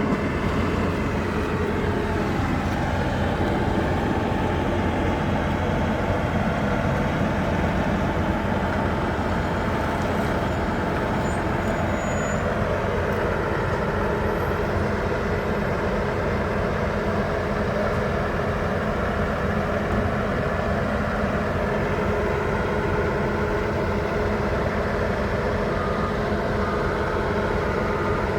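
A heavy truck's engine running steadily, its pitch dropping a little a few seconds in and again about halfway through. Near the end a reversing beeper starts its repeated beeps.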